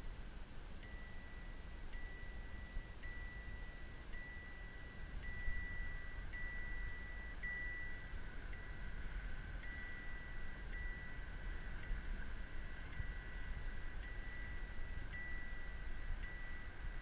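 A car's in-cabin warning chime beeping steadily, about twice a second, over the low rumble of the car rolling along.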